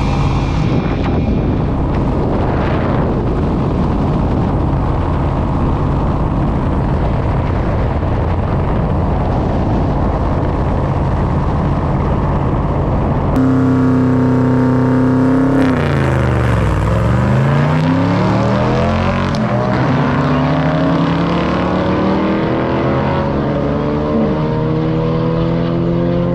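1974 Corvette's V8 driving on the road: a steady cruise with road noise, then, about halfway, the sound changes abruptly to a clearer engine note that drops and climbs several times as the engine revs up and down through the gears.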